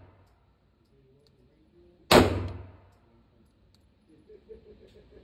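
A single gunshot about two seconds in, echoing off the walls of an indoor shooting range lane and dying away over about a second.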